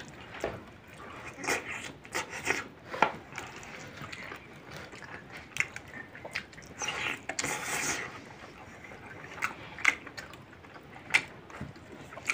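Close-up eating sounds: a man biting and chewing a chicken leg piece in spinach gravy with rice, with wet mouth smacks and scattered sharp clicks.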